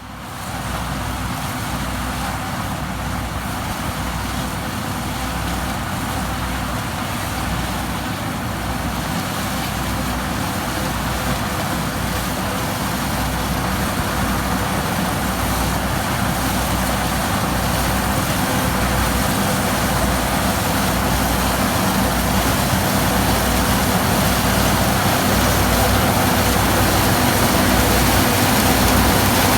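New Holland TX34 combine harvester running in a corn field: a steady engine and machinery noise with a low throb, slowly growing louder.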